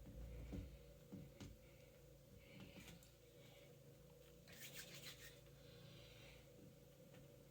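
Faint rubbing and scraping as epoxy putty is pressed and smoothed onto drywall, with a few light clicks, in two short bouts about two and a half and four and a half seconds in, over a low room hum.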